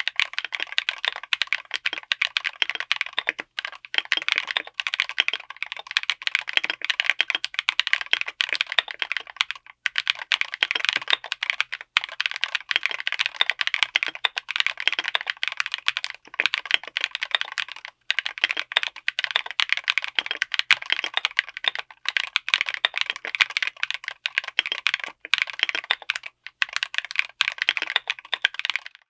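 Fast typing on a mechanical keyboard fitted with Epomaker Peace Lily linear switches on an FR4 plate: a dense run of keystrokes with brief pauses every few seconds.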